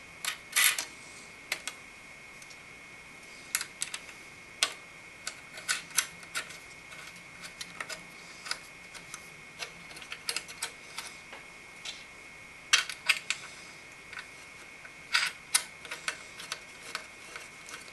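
Small metal nuts being fitted by hand onto the threaded studs of a CPU cooler's steel mounting bracket: scattered light metallic clicks and taps, some in quick clusters, with pauses of a second or more between them.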